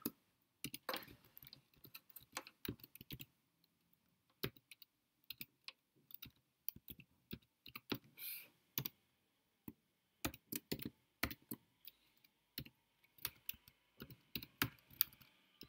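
Computer keyboard being typed on, single keystrokes clicking at an irregular pace with short pauses between runs of keys.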